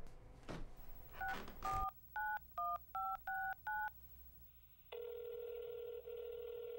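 A few knocks, then a touch-tone telephone being dialled: about seven short two-tone beeps in quick succession. Near the end the ringing tone on the line sounds for about two seconds.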